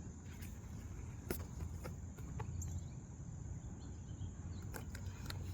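A few light clicks and taps of a comic book being handled, over a steady low hum and a constant high-pitched drone.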